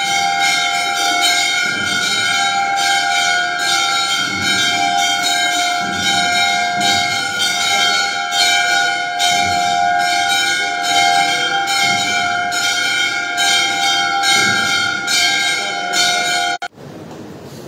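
Hindu temple bells ringing steadily during worship, struck over and over at about two strokes a second so the ringing never dies away; it stops suddenly near the end, leaving a low steady hum.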